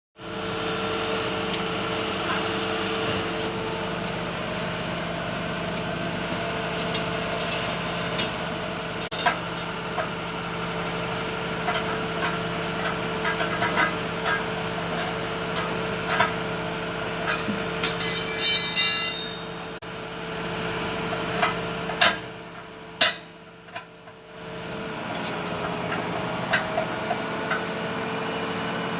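Truck tire being dismounted with hand tools: scattered metal knocks and clanks over the steady hum of a running engine or compressor. The hum cuts out for about two seconds near the end, then starts again.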